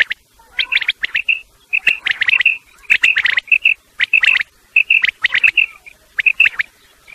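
Quail calling: phrases of quick, sharp notes with short clear notes between them, repeated about once a second and stopping shortly before the end.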